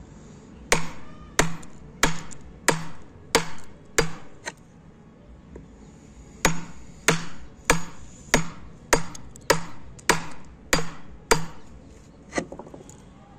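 Wood chisel being struck repeatedly as it cuts into a timber joint, sharp knocks about every 0.6 seconds. There are about seven strikes, a pause of about two seconds, then about a dozen more and one last knock near the end.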